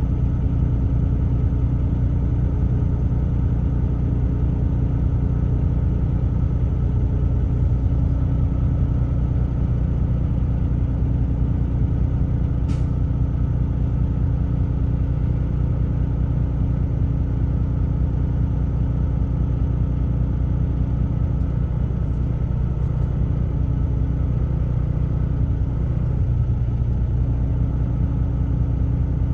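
Truck driving at steady speed, its engine and road noise making a constant low rumble heard from inside the cab, with a single short click about 13 seconds in.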